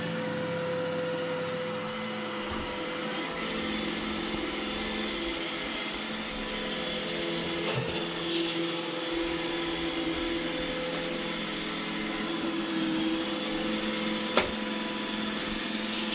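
iRobot Roomba E6 robot vacuum running steadily, its motors giving a constant whine with several pitches. There is a single sharp click about fourteen seconds in.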